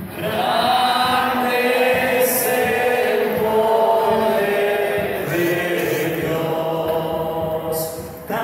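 Voices singing a church hymn together in long, held notes.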